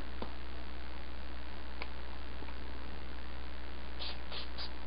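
Three quick hissing puffs from a pump-spray bottle of Zip Kicker CA-glue accelerator near the end, spraying the glued joint to set the glue instantly. Under it runs a steady electrical hum, with a couple of faint clicks earlier.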